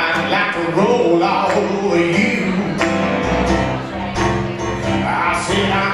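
Live piano music with a man singing, played on two pianos facing each other, dueling-piano style.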